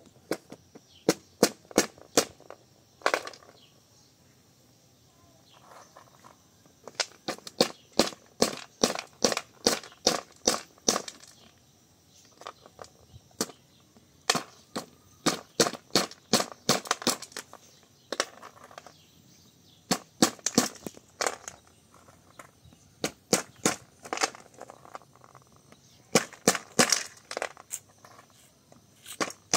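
Runs of quick, sharp knocks, about three to five a second, broken by pauses of a second or two.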